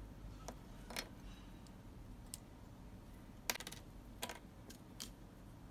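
Faint, scattered clicks and taps of small plastic parts as a Dremel speed controller's plastic housing is handled and worked apart with a small screwdriver. The loudest is a quick cluster of clicks a little past halfway.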